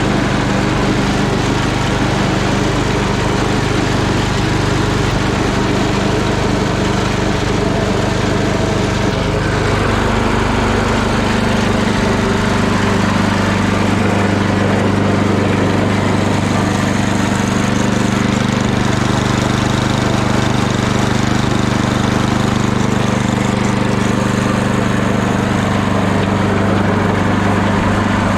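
Tecumseh engine of a snow blower running steadily on a freshly cleaned carburetor. Its speed rises a little about ten seconds in, then holds even without surging.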